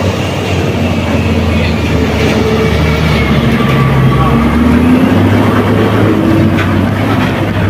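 Heavy diesel truck engine running at low revs under load as a tractor unit hauls its flatbed semi-trailer round a tight hairpin; the drone steps up in pitch about five seconds in.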